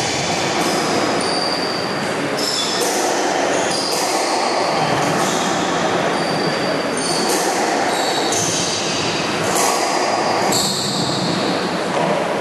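Squash rally: rubber-soled court shoes squeaking in many short, high chirps on the wooden court floor as the players turn and lunge, with sharp knocks of the ball off racquets and walls in between.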